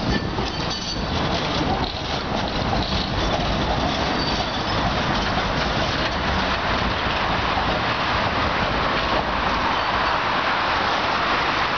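Articulated tram moving off past the microphone, its steel wheels running along the rails with a steady, noisy rumble.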